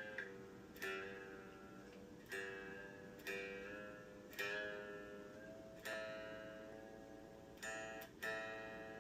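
Epiphone SG Junior electric guitar strummed chord by chord, about eight strums, each left to ring out before the next. The chord changes from strum to strum.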